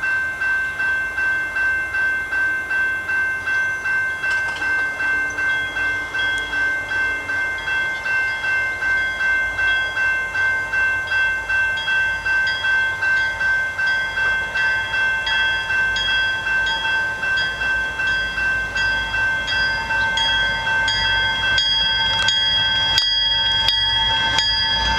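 Railway level-crossing warning bell ringing steadily, about two strikes a second, signalling an approaching train. A low rumble from the approaching freight locomotives builds in the last few seconds.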